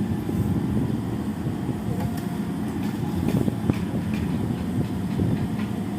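Excavator's diesel engine running steadily, with scattered metallic clanks and knocks, most of them between about two and four seconds in.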